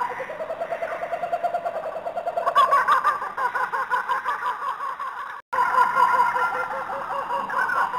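A recording of animal calls played in a loop: a quick pulsing call, then a run of higher calls. It cuts out dead about five and a half seconds in and starts the same sequence over.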